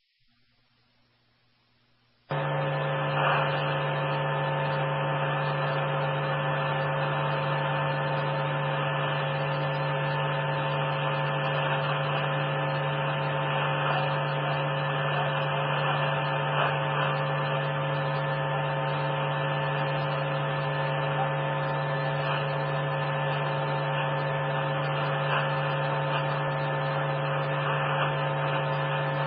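Police radio channel heard on a scanner, carrying a steady electrical hum and buzz with hiss, which comes on suddenly about two seconds in and holds unchanged.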